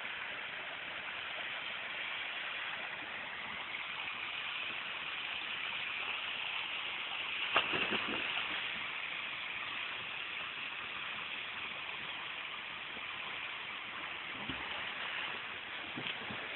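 Steady rush of water pouring from an artificial rock waterfall into a swimming pool, with one short sharp sound about seven and a half seconds in.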